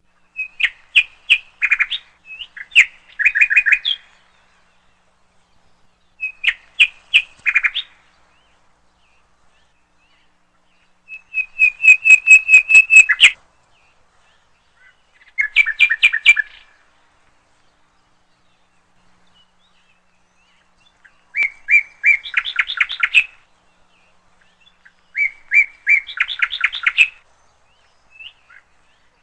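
A bird singing: about six short phrases of rapid, repeated high chirps, each a second or two long, with pauses of a few seconds between them.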